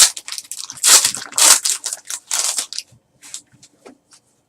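A trading card pack's wrapper being torn open and crumpled, a run of crackling rustles for about three seconds, then a few light ticks as the cards are handled.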